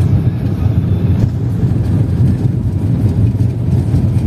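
Vehicle driving on a dirt road: a steady low engine and road rumble.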